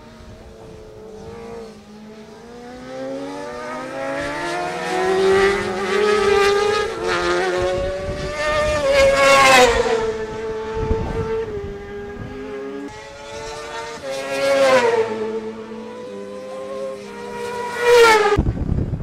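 Racing motorcycle engines at high revs, the pitch climbing as they accelerate and dropping as each bike passes, with loud pass-bys about halfway through, around 14 seconds in and near the end. Just after the last one the engine sound cuts off into a rush of noise like wind on the microphone.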